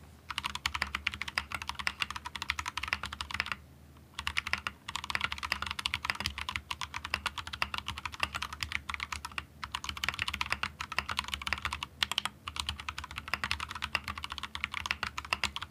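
Typing on an Akko 3068B mechanical keyboard in stock form, with unlubed Akko CS Jelly Purple tactile switches: a rapid, continuous clatter of keystrokes with brief pauses, the longest about four seconds in.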